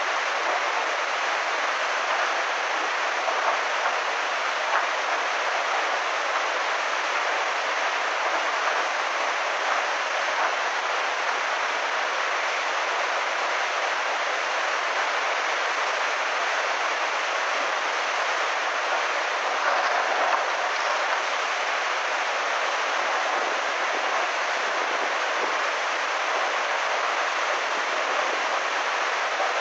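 Flash-flood torrent of muddy water rushing and churning, a steady, unbroken water noise.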